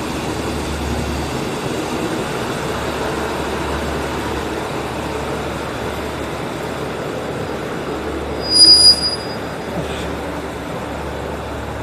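A KiHa 75 diesel railcar pulling slowly along the platform, its diesel engine and wheels giving a steady rumble. About eight and a half seconds in, a short, loud, high-pitched squeal of the brakes as it comes to a stop.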